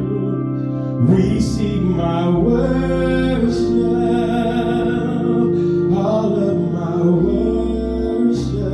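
A gospel worship song: singing over a keyboard and bass accompaniment.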